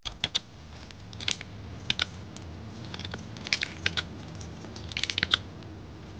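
Stock ABS keycaps being pulled off a mechanical keyboard's switches with a small keycap puller: a few sharp plastic clicks in short clusters, about every second or so.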